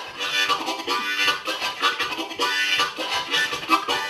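Harmonica played solo: a blues riff of short, rhythmic chorded phrases.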